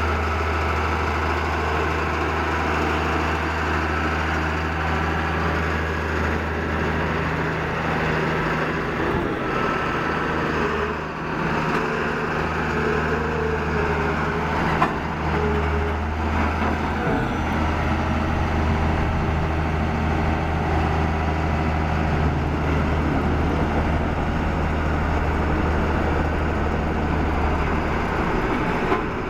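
Diesel engine of a 1992 CAT CS563 single-drum vibratory soil compactor running steadily with a deep hum. The hum dips briefly twice near the middle, and there is one sharp knock about halfway through.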